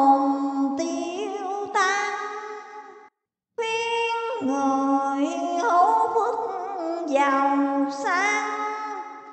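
A woman's voice singing Vietnamese verse in a slow, melodic chanting style, with long held notes that waver and slide in pitch. It breaks off briefly about three seconds in, then carries on.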